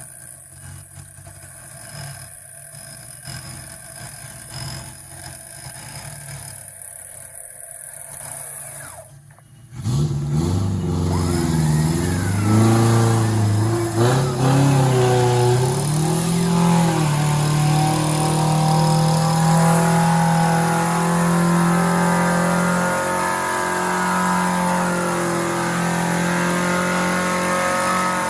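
Off-road 4x4's engine revving under load, its pitch rising and falling several times, then running at steady high revs. For the first nine seconds or so, an engine hums more quietly under a steady high hiss.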